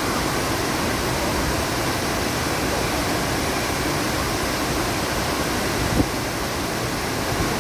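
Waterfall rushing: a steady, even roar of falling water, with one short knock about six seconds in.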